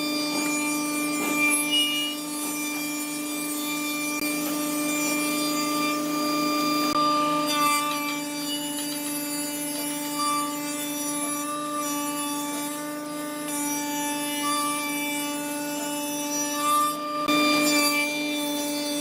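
Woodworking machine running with a steady whine while cutting wood, with a rasping cut over it. The sound changes abruptly about seven seconds in and again near the end.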